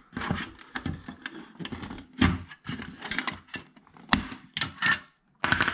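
Small flathead screwdriver prying plastic lenses off a car's interior dome-light housing: irregular plastic clicks and scraping, with sharp snaps about two and four seconds in.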